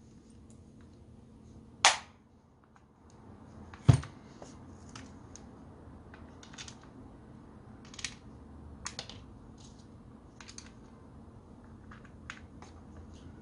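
Hands handling a red electric drill's plastic housing and small parts on a workbench: two sharp snaps about two seconds apart, the second with a knock, then scattered light clicks and taps.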